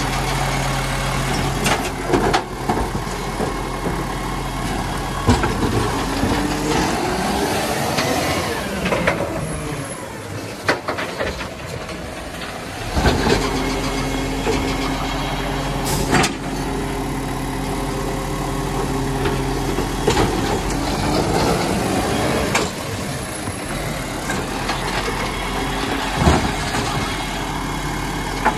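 Side-loader recycling truck's diesel engine running while its automated arm grabs, lifts and lowers wheelie bins. The engine pitch rises and falls as the hydraulics work, and sharp clanks come from the arm and bins several times.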